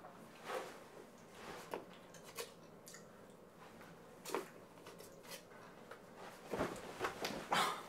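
Scattered soft crunches, clicks and rustles of a person eating snack pieces from a plastic jar, with a few louder ones near the end.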